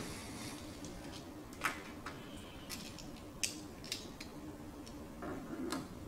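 Light metallic clicks and taps of a digital caliper being handled and set against a lathe cross slide, about half a dozen, unevenly spaced, over a faint steady hum.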